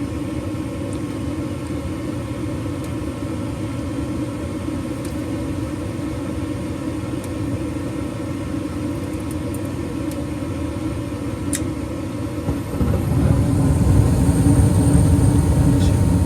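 Payne gas furnace cycling on: the draft inducer motor hums steadily. About 13 seconds in, a louder, lower rushing sound sets in as the next stage of the start-up sequence comes on.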